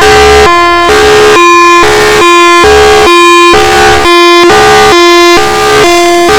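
Thunderbolt Hi-Lo siren sounding its hi-lo signal, switching between a higher and a lower steady tone about twice a second. Really loud.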